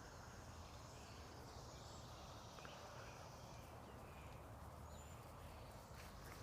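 Near silence: faint, steady low background noise with a few faint ticks.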